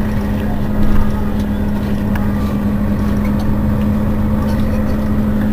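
Mercedes-Benz Citaro Facelift city bus's rear-mounted engine idling steadily, with a strong constant hum.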